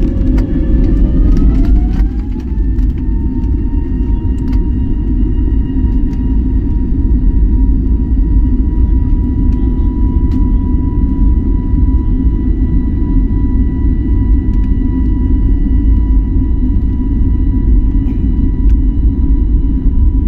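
Jet airliner engines spooling up to takeoff thrust: a whine rising in pitch over the first two seconds or so, then holding steady over a heavy low rumble from the takeoff roll, with a few light clicks.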